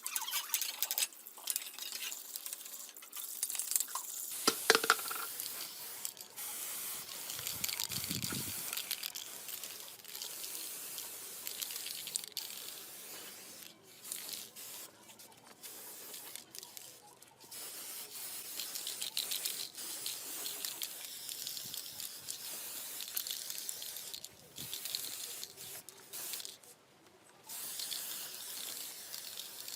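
Spraying hiss in repeated passes with short pauses between them, and a few knocks and clatters about four to five seconds in.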